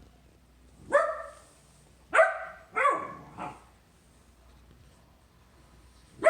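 Bernese Mountain Dog puppy barking: a run of four short barks, the last one weaker, then one more bark right at the end.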